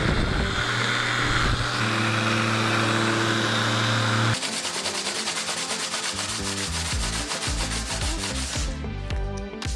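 Electric sander running steadily against a wooden window frame, sanding down two-part filler. About four seconds in it cuts off abruptly and gives way to a quieter rhythmic rubbing of quick strokes.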